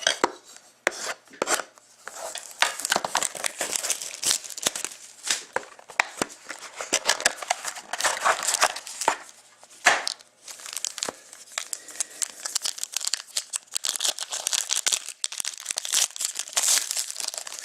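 Wrapping on a box of hockey trading cards being torn open and crumpled: a dense run of irregular crackling, crinkling and tearing.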